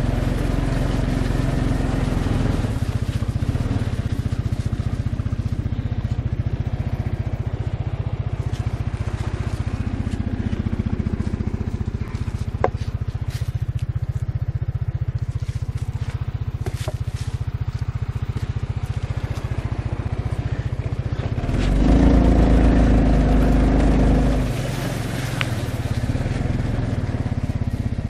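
Arctic Cat four-wheeler's engine running steadily at low speed, growing louder for a couple of seconds about three-quarters of the way through.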